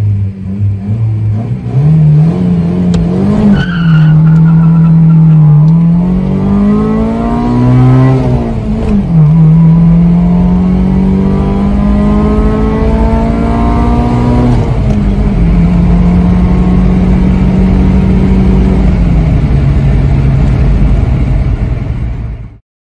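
Toyota Corolla EE90's 2E 1.3-litre four-cylinder, with a modified head and 266 cam, heard from inside the cabin under hard acceleration. It revs up through the gears, and the pitch drops sharply at each shift about 3.5, 9 and 15 seconds in. It then holds steady, eases off, and cuts off abruptly near the end.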